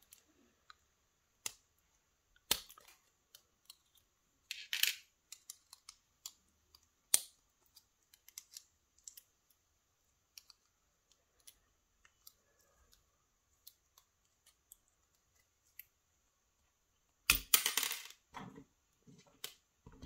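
Sparse small metal clicks and scrapes as the retaining clips are worked off a euro-profile lock cylinder's cores, with a louder burst of metallic clatter near the end.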